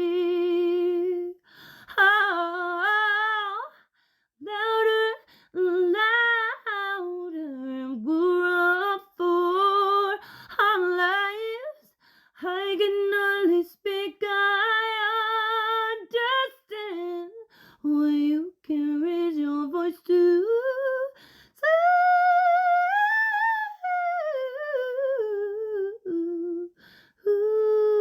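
A woman's voice singing a wordless melody unaccompanied, with vibrato on the held notes and short breaths between phrases; the melody climbs to its highest notes about 22 seconds in, then falls back.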